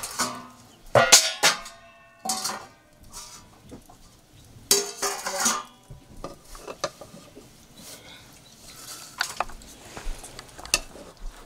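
Metal ladle and steel plates and pots clinking and scraping as food is dished out. Several sharp ringing clanks come in the first half, including a longer clatter about five seconds in, then lighter clinks.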